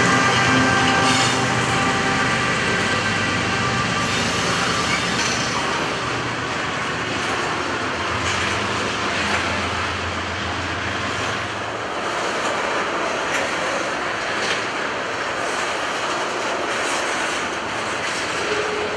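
Canadian Pacific freight train's cars rolling past close by, steel wheels clacking over the rail joints as boxcars and then tank cars go by. The passing locomotive's engine sound fades out over the first few seconds.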